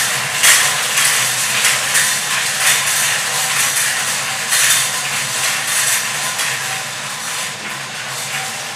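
Numbered lottery balls clattering and rattling inside two hand-cranked wire-cage drums as they spin. The clatter is dense and continuous, with many small clicks, and eases slightly near the end.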